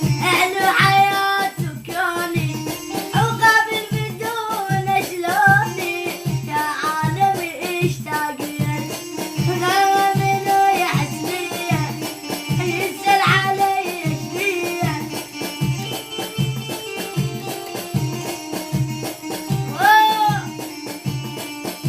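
A child's voice singing an Arabic chant in phrases over a steady low drum beat of about two beats a second and a sustained background drone.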